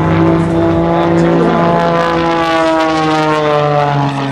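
Panzl 330 aerobatic monoplane's piston engine and propeller running steadily. The drone falls slowly in pitch as the plane comes past.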